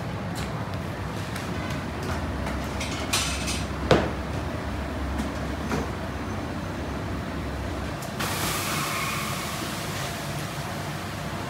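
Bakery workroom noise: a steady low rumble, with a sharp knock about four seconds in, a few lighter clicks, and a burst of hiss about eight seconds in.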